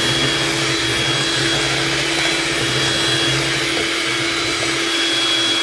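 Electric hand mixer running at one steady speed, its beaters whirring through runny egg-sugar-oil batter in a stainless steel bowl, with a constant motor hum and a thin high whine above it.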